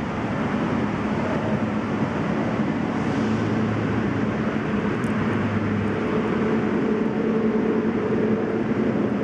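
Steady background rumble with a low mechanical hum throughout. A deeper hum joins for a few seconds midway, and a higher hum comes in near the end.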